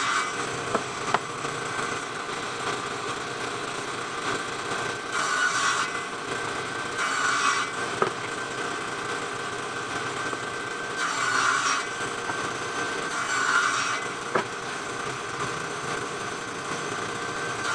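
Circular saw running and cutting wood in several short passes, each lasting about a second, with a few sharp knocks in between.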